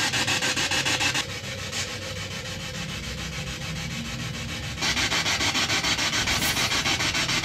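Spirit box sweeping through radio stations: a steady hiss of static chopped into rapid, even pulses. It drops to a quieter stretch about a second in and comes back up about five seconds in.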